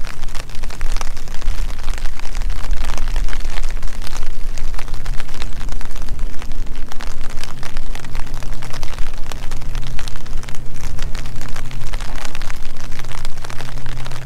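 Rain falling, a dense, steady crackle of drops, over a continuous low rumble; a steady low hum joins about a third of the way in.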